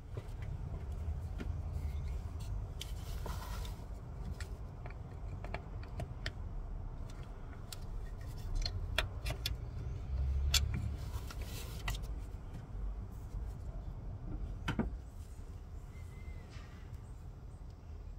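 Scattered small metallic clicks and taps of a screwdriver working the clip on the clutch supply pipe's connector at the slave cylinder, releasing it so the pipe can be eased out for bleeding. A low rumble runs underneath, and the sharpest clicks come in the second half.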